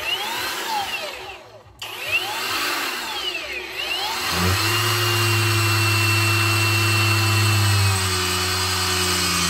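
Cordless brushless angle grinder running. For the first few seconds it makes a rough noise, with a brief dip about two seconds in. It then settles into a steady hum that drops slightly in pitch at about eight seconds.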